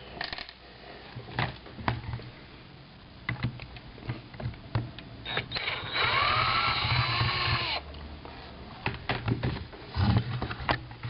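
Power drill/driver running for about two seconds, about six seconds in, its whine rising and then falling in pitch as it backs out a screw from the rifle's polymer shell. Small clicks and knocks of parts being handled come before and after it.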